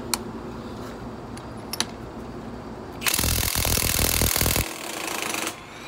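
Milwaukee M18 Fuel 2767-20 1/2-inch high-torque impact wrench hammering on a rusty bolt, working to break it loose. After two light clicks, a burst of rapid impacting lasts about a second and a half about three seconds in, then runs on more weakly for under a second before stopping.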